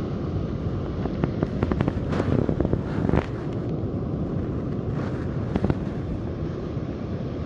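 Steady beach ambience of surf and wind rumbling on the microphone, with a cluster of rustles and clicks from a pair of sunglasses and clothing being handled close to the microphone, mostly in the first half.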